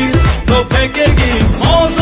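Background pop music with a steady beat of deep bass drum hits that drop in pitch.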